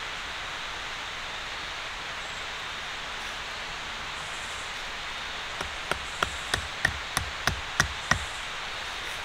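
Tent stake being hammered into forest ground with a piece of wood: a series of about eight sharp knocks, roughly three a second, starting about halfway in, over a steady background hiss.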